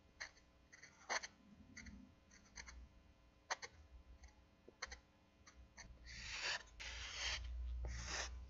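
Faint felt-tip marker strokes on paper: scattered light ticks and taps at first, then from about six seconds in several longer scratchy strokes of the pen tip dragging across the sheet.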